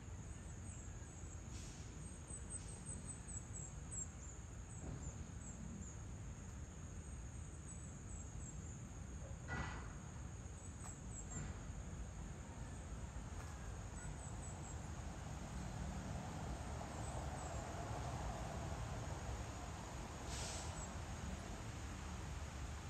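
Outdoor dusk ambience: a steady low rumble under faint, rapid, very high-pitched wildlife chirping that comes in short runs. One louder call comes about halfway through and another brief call near the end.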